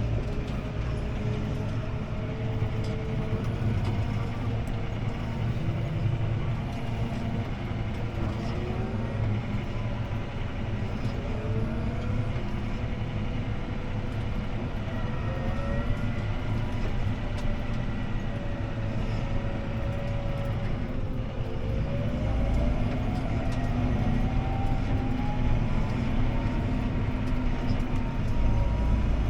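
CLAAS ARION 650 tractor's six-cylinder diesel engine and drivetrain running under load, heard from inside the cab, with a steady low rumble and whines that glide up and down. About 22 seconds in, a whine climbs steadily in pitch as the engine speeds up.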